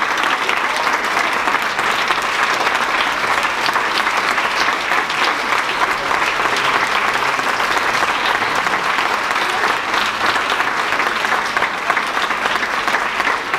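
An audience applauding steadily, many hands clapping together in a dense, even patter.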